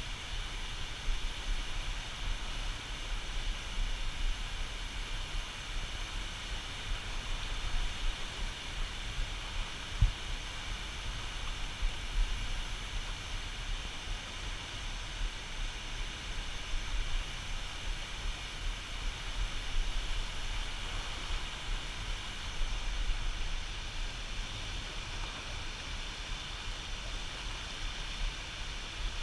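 Steady rush of water pouring through the dam, with a flickering low rumble underneath and a single thump about ten seconds in.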